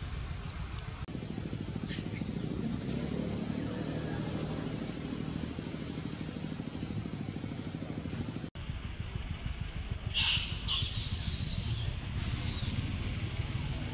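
Steady low rumble of distant motor traffic, with a few short high-pitched calls about two seconds in and again around ten to twelve seconds in.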